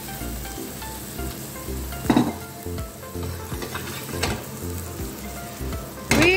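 Beaten egg sizzling in hot oil in a frying pan with shallots and French beans, a steady frying hiss, over soft background music. A brief louder clatter comes about two seconds in, and a short rising cry near the end.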